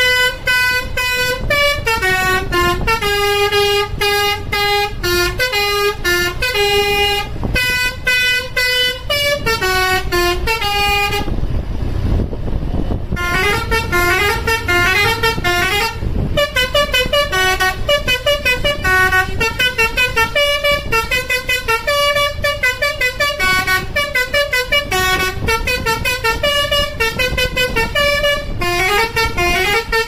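Basuri telolet musical horn on an Adiputro Jetbus 3+ Voyager coach playing a tune of quick stepped notes, over the low rumble of the coach's engine. Just before halfway the tune breaks off for about two seconds, leaving only the engine, then resumes with faster runs of notes.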